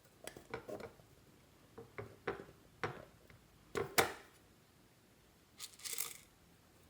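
Clear slime being squeezed and folded by hand, giving irregular sharp clicks and pops in small clusters, with a longer crackling squish about six seconds in.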